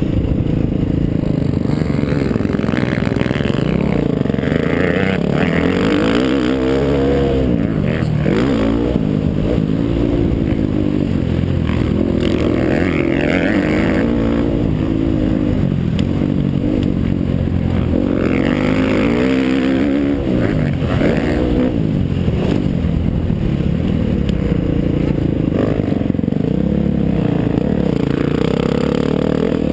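Dirt bike engine on a motocross track, heard from the rider's helmet camera, revving up and down over and over as the rider accelerates and backs off, with rushing noise over the microphone.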